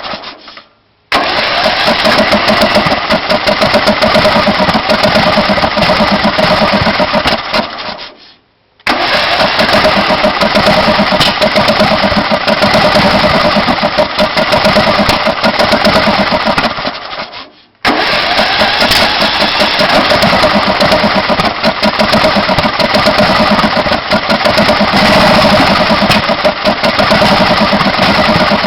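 Briggs & Stratton Intek 18.5 HP mower engine being cranked by its electric starter in three long attempts. It turns over with a rapid pulsing beat but does not start, a sign of the engine's no-start fault.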